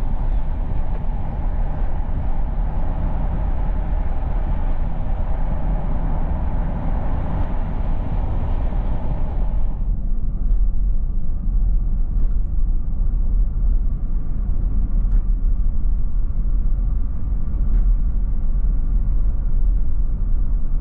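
Road and wind noise of a pickup truck driving, heard from outside by the side mirror as a steady rushing hiss. About ten seconds in it switches to inside the cab, where it becomes a low, steady rumble with a few faint ticks.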